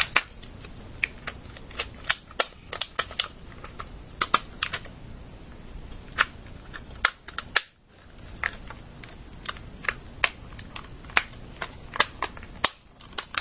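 Hard plastic parts of a GameCube controller clicking and clacking as they are handled and pressed back into place: irregular sharp clicks, with a brief lull a little past halfway.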